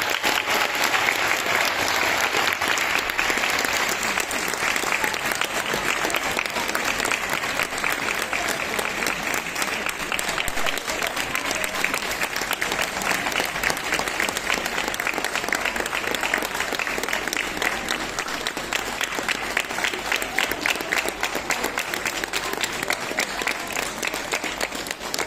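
Audience applauding: a dense, steady patter of many hands clapping, fading slightly toward the end.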